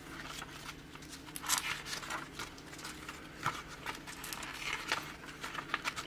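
Pages of a small paperback art booklet being turned by hand: a few soft paper flicks and rustles, the clearest about a second and a half in, around the middle and near the end.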